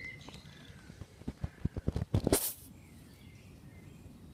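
Phone-handling and grass-rustling noise: a run of soft knocks building to a short loud rush of noise a little past halfway through. A bird chirps faintly at the start.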